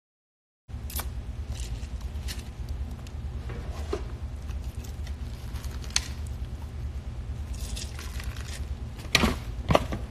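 Handling noise close to a phone microphone: a steady low rumble with scattered clicks, rustles and clinks as food and a paper plate are moved about, with a couple of louder clicks near the end. The sound cuts out for a moment just after the start.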